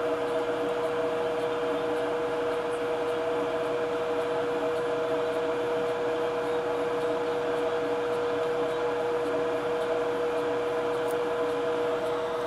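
Fume extractor fan running steadily at a soldering bench: an even rushing air noise with a constant humming tone.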